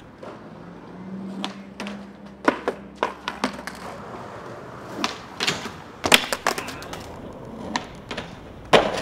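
Skateboard sounds: a string of sharp clacks and knocks of the board and wheels on stone and pavement, irregularly spaced, with the loudest impact near the end as the rider is on the ledge in a front tailslide.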